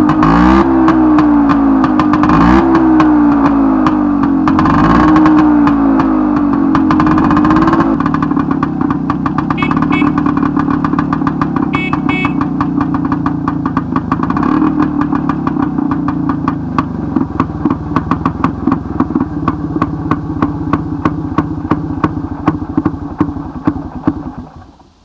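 Tula motorcycle's single-cylinder two-stroke engine running, revved up and down about three times by hand at the carburettor because the throttle cable has snapped. After about eight seconds it settles into a steady idle, then cuts off suddenly near the end.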